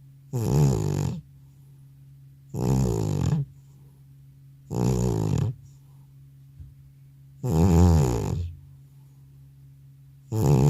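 An old cat snoring loudly in deep sleep: five snores about two and a half seconds apart, each lasting just under a second.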